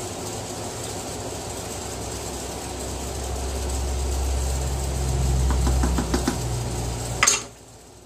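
Portable electric cooktop humming under a stainless saucepan of pickle brine as a spoon stirs it, with a quick run of small spoon taps on the pot. Just after seven seconds a sharp clack sounds and the hum cuts off.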